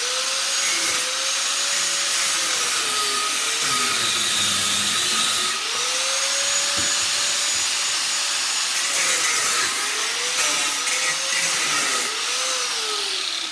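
Corded angle grinder cutting into a dehumidifier's copper-tube and aluminium-fin coil, spinning up at the start. Its motor pitch sags several times as the disc bites and then recovers. It is switched off at the very end and begins to wind down.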